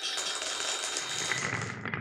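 Many glass marbles clattering rapidly along a marble run track in a dense stream of clicks. About a second in, a lower rolling rumble joins, and the sharp high clatter fades near the end.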